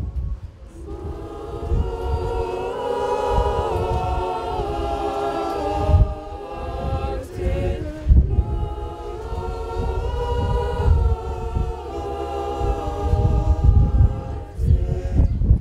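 Women's choir singing together in held, stacked chords, with a brief break about six seconds in and a stop near the end. A low, uneven rumble runs underneath.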